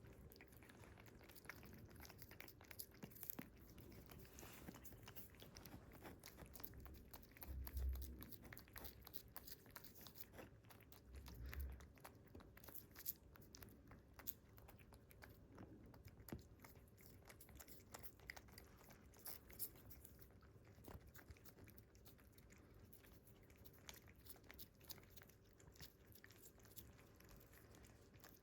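Cats licking a liquid treat: a faint, steady run of small wet licking clicks, with two brief low bumps about eight and eleven seconds in.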